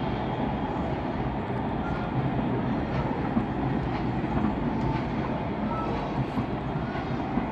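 Distant fireworks display: many aerial shells bursting together merge into a continuous rolling rumble, with faint crackles over it.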